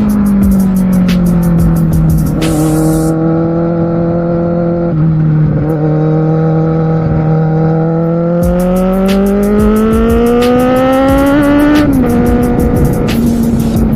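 Kawasaki Z750R inline-four engine under way, heard from on board. The revs ease off over the first couple of seconds and hold low for several seconds. They then climb steadily for about four seconds and drop sharply near the end.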